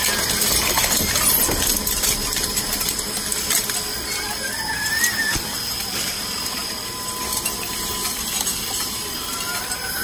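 Industrial refrigerator shredder running, with shredded metal, plastic and foam scraps clinking and clicking as they drop onto the discharge pile over a steady machine noise.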